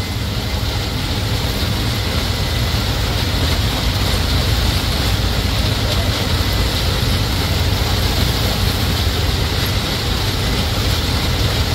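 John Deere CH570 sugarcane harvester running and cutting cane at close range, with the tractor hauling the cane cart running alongside: a loud, steady machine noise with a deep rumble that does not let up.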